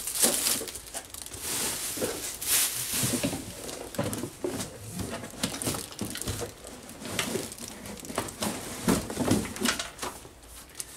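Rustling and irregular light knocks of packaging and hard plastic parts being handled and lifted out of a cardboard box.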